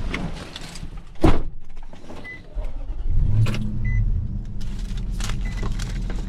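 A vehicle door shuts with a loud thump about a second in, then the engine starts and idles steadily, with a few short electronic beeps and scattered clicks.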